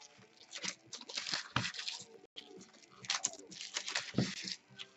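Trading card packaging being handled and torn, a run of short scratchy rustles and crinkles with a couple of soft knocks on the table.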